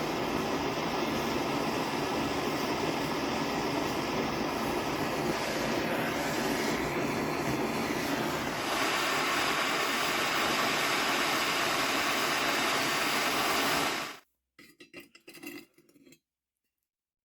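A power tool running steadily with a loud, even noise; its tone gets brighter about nine seconds in, and it cuts off suddenly about fourteen seconds in, followed by a few faint clicks.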